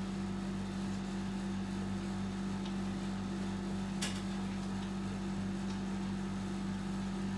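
Steady low electrical hum, with a single sharp click about four seconds in.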